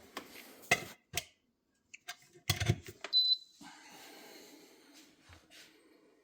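Several short clinks and knocks of hard objects being handled, with a brief high ring about three seconds in, then a faint steady hum.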